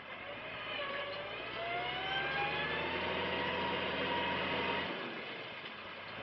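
Case IH X-Line 115 tractor's diesel engine working hard as it drags a disc harrow through deep mud. Its pitch rises over the first couple of seconds, holds, and then falls back near the end as the engine eases off.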